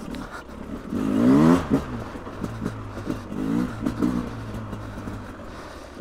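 Beta RR 300 (2024) enduro motorcycle's single-cylinder two-stroke engine. About a second in the revs rise and fall, then it runs low with a few short throttle blips.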